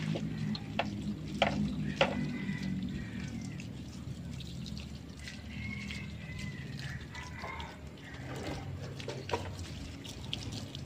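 Water running and splashing as a motorcycle is hosed and washed at the rear wheel, with a few light knocks in the first two seconds.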